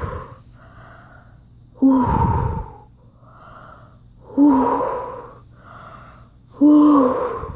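A man panting heavily in a mock show of exhaustion: four loud, throaty breaths out about two and a half seconds apart, with quieter breaths in between.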